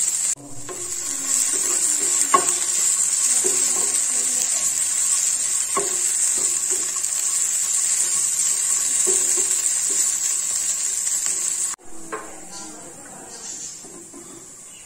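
Sliced jackfruit seeds and onion sizzling in hot coconut oil in a nonstick frying pan, stirred with a wooden spatula that clicks against the pan a few times. The sizzle cuts off sharply near the end, leaving a quieter hiss.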